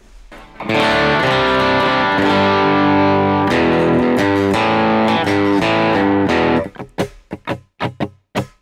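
Electric guitar playing ringing chords through a Case Study Studio Compressor pedal set to a slow attack for subtle compression. Under a second in the chords start and change every second or so; in the last two seconds they turn into short choppy stabs with gaps between.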